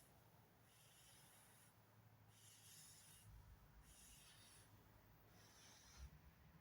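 Faint, steady rhythmic breathing close to the microphone: a soft, hissy breath about every second and a half.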